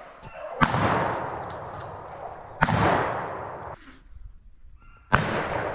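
Three shotgun shots, about two to two and a half seconds apart, each followed by a long fading tail of echo lasting a second or more.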